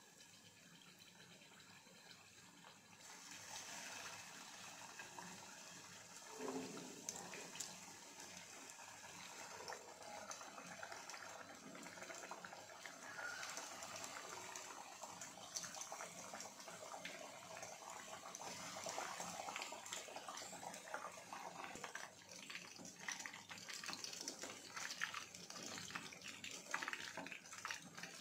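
Battered chicken lollipops sizzling and crackling as they deep-fry in hot oil in a pan. The sizzle starts a few seconds in and grows louder and busier as more pieces go into the oil.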